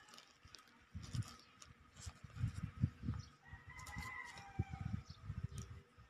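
Handling noise from unpacking a small plastic portable washing-machine unit: faint rustling of plastic wrapping with irregular bumps and clicks.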